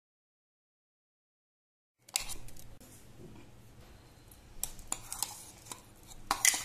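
Dead silence at first, then from about two seconds in a steel spoon scrapes wet ground onion-garlic-ginger paste out of a steel mixer-grinder jar, with a few sharp metallic clinks of spoon on jar, the loudest near the end.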